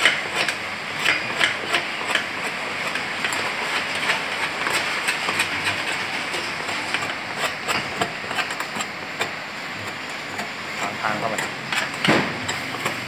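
Irregular metallic clicking and tapping from a socket wrench working on the pulsator's centre bolt inside a top-loading washer tub. There is a louder knock near the end.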